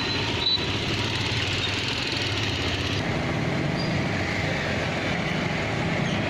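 Street traffic noise: motor vehicle engines running steadily.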